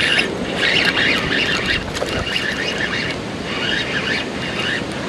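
Fishing reel being cranked in repeated short bursts while fighting a bass, each turn giving a whirring tone, over steady rushing water and wind noise.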